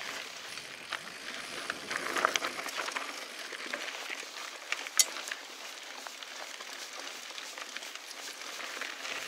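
Mountain bike rolling over a dirt and gravel trail: tyres crunching on the loose surface, with many small clicks and rattles from the bike and one sharp click about five seconds in.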